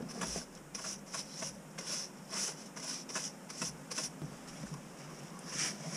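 Stiff-bristled hand brush scrubbing corrosion off a car battery's terminal clamp and tray in quick scratchy strokes, about two or three a second, pausing briefly near the end before one last stroke.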